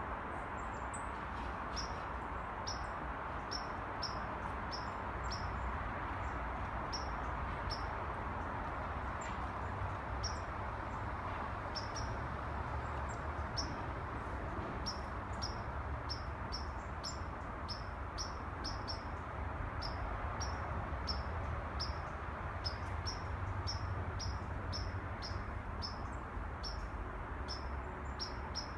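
A bird giving short, high chirps over and over, roughly one or two a second, over a steady hum of city noise with a low rumble beneath it.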